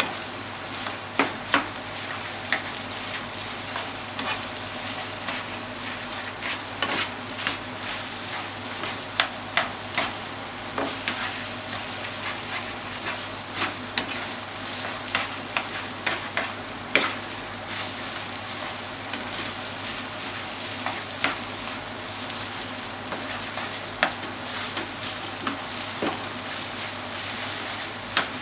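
Rice and chicken stir-frying in a frying pan: a steady sizzle under irregular clacks and scrapes of a flat spatula against the pan as the rice is turned and broken up.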